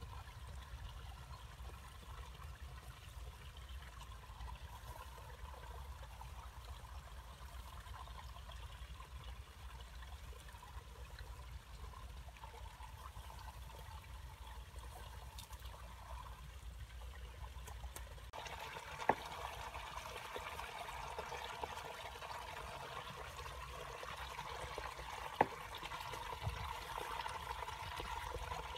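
Faint, steady trickling of water, over a low rumble. Two sharp clicks come in the second half.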